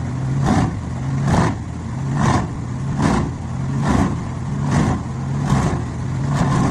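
A Vermeer WC2500TX whole-tree chipper, with a 600-horsepower engine, running steadily under load while it chips a log. A crunching surge repeats a little more than once a second over the steady drone of the engine.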